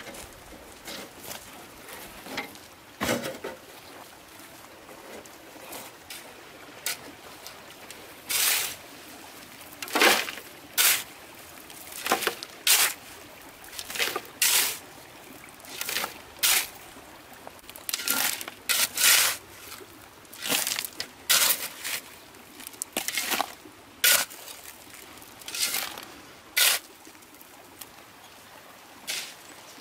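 Water splashing and pouring in short, irregular bursts, a couple dozen over half a minute, above a steady low hiss.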